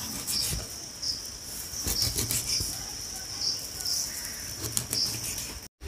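A kitchen knife cutting soft soaked soya chunks on a wooden chopping board, giving scattered soft taps and thuds of the blade meeting the board. Behind it runs a steady high-pitched chirping that swells about once a second.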